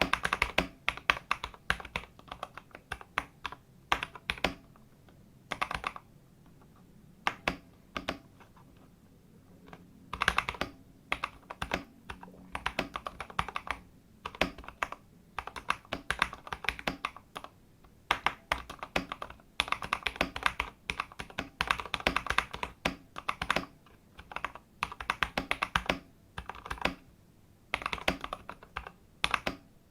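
Mechanical keyboard typing: KTT Wine switch stems in Gateron clear housings on an aluminium plate in a plastic case, with Cherry-profile keycaps. Rapid keystroke clicks and clacks in bursts, with a lull of a few seconds around the middle.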